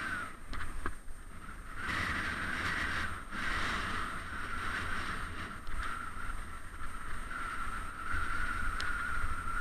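Bicycle rolling along a paved path, heard from a camera on the bike: a steady hiss of tyre and riding noise that dips away briefly a couple of times, over low wind rumble on the microphone.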